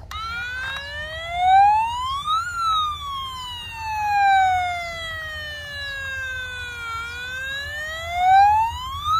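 Battery-powered toy fire truck's electronic siren, switched on with a click: a slow wailing tone that rises for about two and a half seconds, falls slowly for about four, then rises again near the end.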